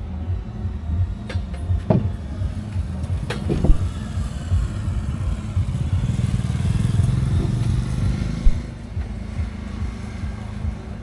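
Royal Enfield Classic 500's single-cylinder engine running on the move, a low pulsing rumble that builds louder for a few seconds past the middle as it pulls harder, then eases off. A few sharp knocks sound in the first four seconds.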